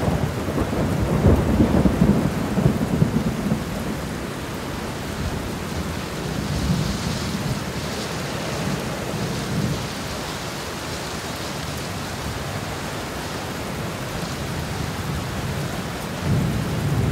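Heavy hurricane rain and gusting wind: a steady hiss of downpour, with stronger low surges in the first few seconds and again near the end.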